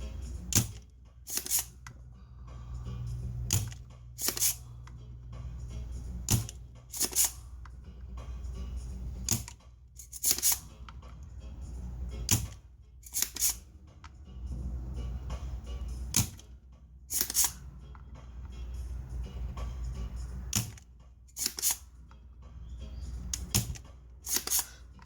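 Solder being cleared from circuit-board holes with a desoldering tool: sharp clicks, often in pairs, every second or two, with stretches of low hum between them.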